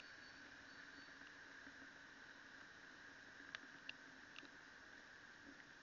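Near silence: a faint steady hiss, with three light ticks between about three and a half and four and a half seconds in.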